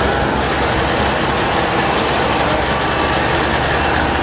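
Engine of a red Brockway tri-axle dump truck running as the truck drives slowly past close by: a loud, steady engine drone.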